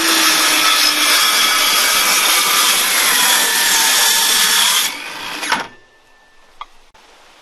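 A power tool working on a wooden siding board, running steadily and loudly for about five seconds before it stops, followed by a short knock.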